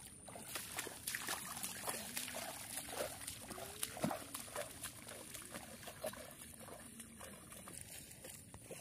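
Bare feet splashing and squelching through shallow water and mud: a run of irregular wet splashes and slaps.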